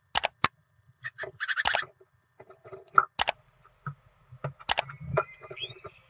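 A run of sharp, irregular clicks with short scratchy, rapidly pulsing rustles between them, and a faint thin whistle near the end.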